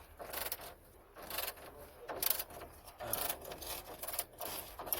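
Ratchet wrench clicking in short, irregular strokes as the steering rack's mounting bolts are tightened.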